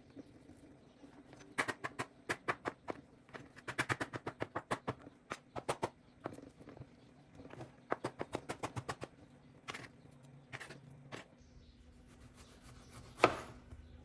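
Runs of quick, light clicks or taps, several a second, broken by short pauses, with one louder knock near the end.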